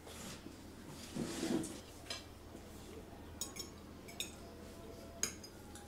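Cutlery clinking against plates and bowls at a dinner table: a handful of scattered, sharp clinks over a quiet room.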